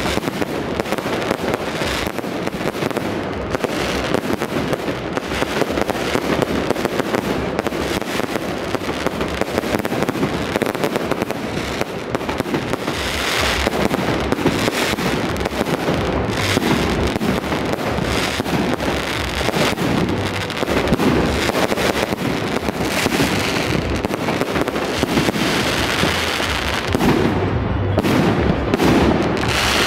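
Fireworks display going off without pause: a dense, overlapping run of shell bursts and crackle.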